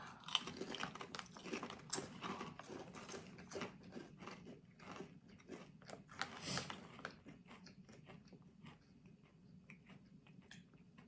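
Lay's Sizzling Hot potato chips being crunched and chewed: many quick, crisp crackles, dense at first and thinning out toward the end as the chips are chewed down.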